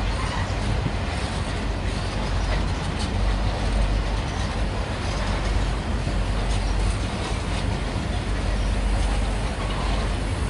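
Grain hopper wagons of a freight train rolling past on steel wheels: a steady, deep rumble with a few faint clicks.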